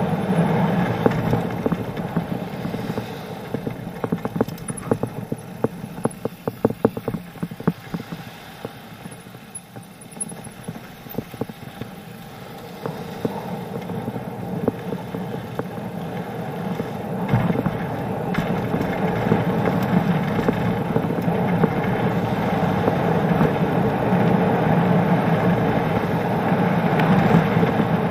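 Mountain bike ridden downhill over a wooden boardwalk, its tyres rumbling over the planks with a fast clatter about five seconds in, then a steadier, louder rolling rumble with the bike rattling.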